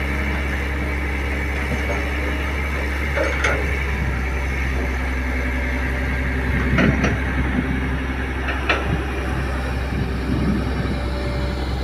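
Kobelco hydraulic excavator's diesel engine running steadily under load as it digs and swings a full bucket of soil, with a few short clanks and knocks about a third of the way in and twice more past the middle.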